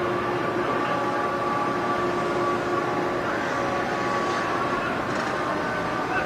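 Steady drone of ship machinery on the river: several steady humming tones over a constant hiss, with no clear start or stop.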